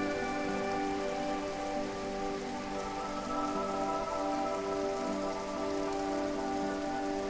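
Waterfall rushing in a steady, even wash of falling water, with a soft bed of held tones beneath it that shift slowly.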